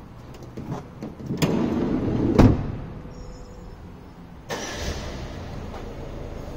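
The rear sliding side door of a Toyota Proace City is rolled along its track and slammed shut, with a loud bang about two and a half seconds in. A few light clicks of the handle and latch come before it.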